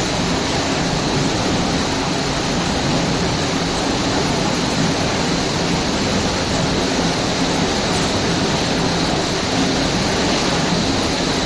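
Steady rushing of falling water.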